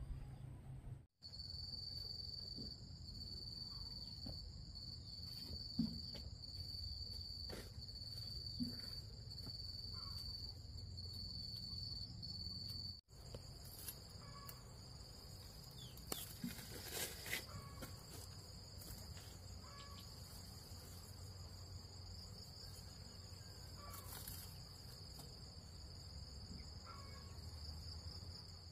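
Insects trilling in a steady high tone: it pulses evenly at first and runs unbroken from about thirteen seconds in. The sound cuts out for an instant twice, and a few faint knocks are heard.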